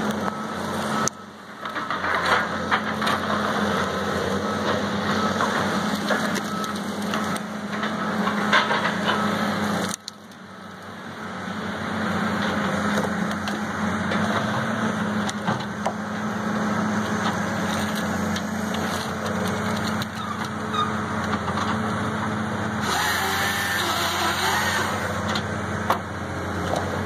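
A Tigercat 234 knuckleboom loader's diesel engine runs steadily while it pulls a bundle of pine stems through a delimber, the limbs cracking and splintering off with many sharp snaps. The sound briefly drops away about a second in and again at about ten seconds.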